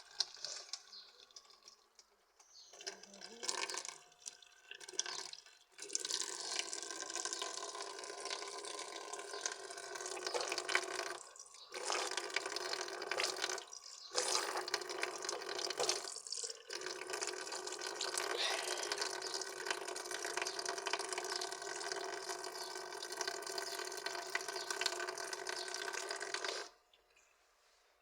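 Water running from a tap into a sink, its flow broken briefly a few times in the middle, then turned off abruptly near the end. Shorter bursts of running water come before the long run.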